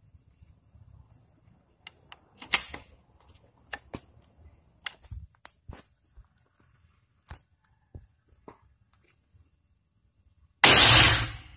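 Double-tube air rifle firing one shot near the end: a loud sharp report that dies away over just under a second. Before it, scattered small clicks and knocks of the gun being handled.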